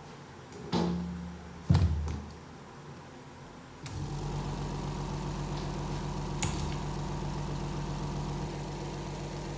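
Two knocks of metal parts set down on a workbench, then a click and a machine's motor starts a steady, even hum about four seconds in that keeps running.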